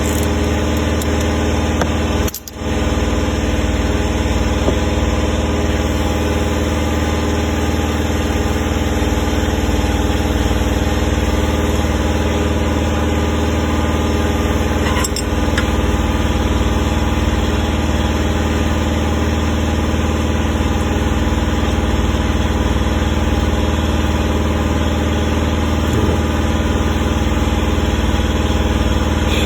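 Steady mechanical hum of a running motor or machine, even in level and pitch, with a brief dropout about two and a half seconds in.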